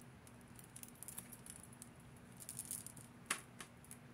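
Faint, scattered light clicks and jingles of beads and thin chain being handled, with a short cluster of louder clicks about three seconds in.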